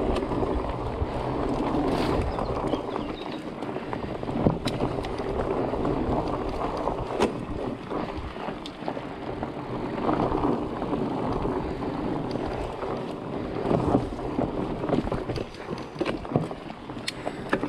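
Mountain bike rolling over a dirt singletrack: a steady rumble of tyres on the trail and wind on the microphone, with scattered rattles and knocks from the bike over roots and bumps.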